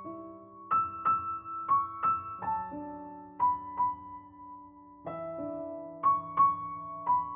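Soft background piano music: slow melody notes struck one after another and left to ring over lower held notes.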